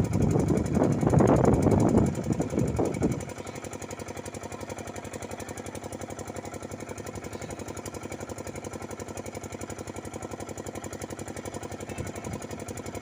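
A motor or small engine running steadily with a fast, even pulse. It is covered by loud, irregular sound, voice-like, for the first three seconds.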